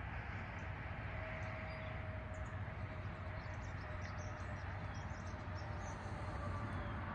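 Outdoor rural morning ambience: a steady low rumble under faint, scattered short high chirps.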